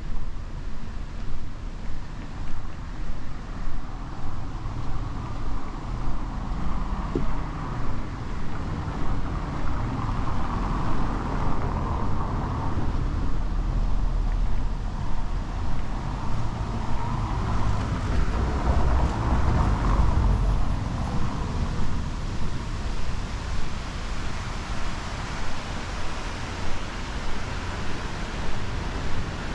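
Street traffic: a car passes, its tyre and engine noise swelling for several seconds in the middle and then fading. Under it runs an even rhythm of footsteps, a little over one a second.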